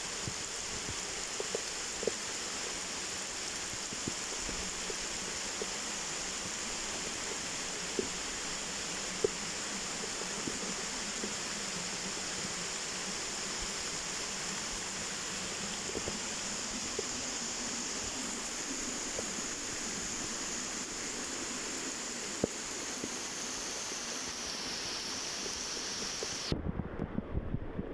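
Waterfall's steady rushing water, with a few faint ticks of splashing. Near the end the sound changes abruptly to a duller low rumble with knocks, like wind buffeting the microphone.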